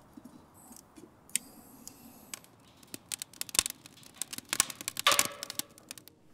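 Split kindling crackling and popping as it catches in a steel fire pit. The sharp snaps come thickest about three to five seconds in, after a few light wooden clicks as the sticks are set in place.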